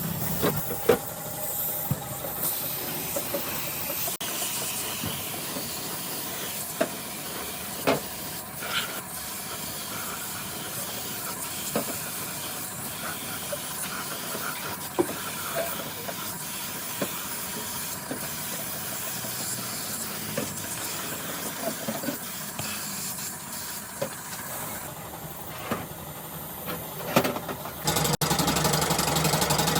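Steady hissing workshop noise with scattered short clicks and knocks. Near the end it cuts to a louder, denser machine noise.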